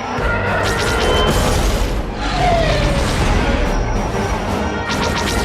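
Soundtrack music mixed with space-battle sound effects, with booms and crashes of explosions.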